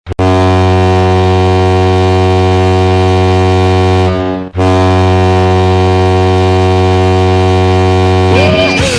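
Ice hockey arena goal horn sounding two long, loud, steady blasts of about four seconds each, with a short break between them. A rock goal song starts near the end.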